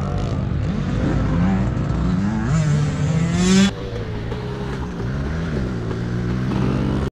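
Small four-stroke single-cylinder Kawasaki KLX110 pit bike engine revving up in several rising pulls. The throttle cuts off sharply about three and a half seconds in, and the engine then runs at lower revs.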